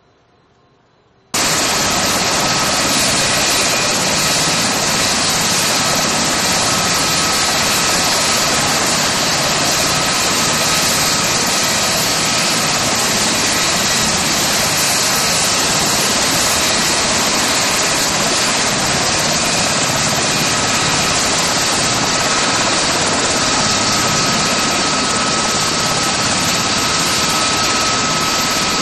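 Helicopter turbine engine running steadily: a loud rushing noise with a thin, steady whine over it, which starts abruptly about a second in.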